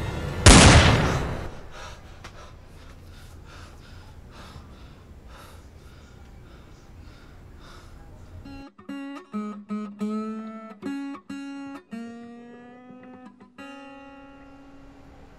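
A single pistol shot about half a second in, sharp and loud, ringing away over about a second. From about nine seconds in, an acoustic guitar plays slow plucked notes, ending on a held note.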